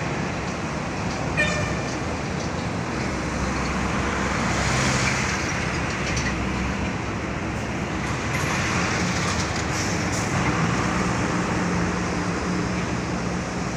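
Steady engine drone and road noise of container trucks running along a port quay, with a brief high squeal about a second and a half in.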